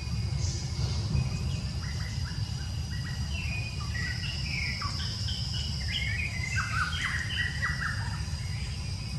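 A bird calling in a quick run of short chirps, starting about two seconds in and stopping near the end, over a steady high insect drone and a low rumble.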